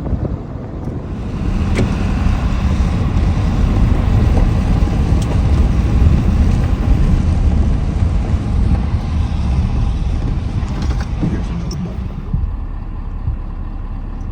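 Pickup truck driving over a rough dirt road, heard from inside the cab: a steady rumble of engine and tyres, with scattered knocks and rattles as it bounces. It gets a little quieter and duller near the end.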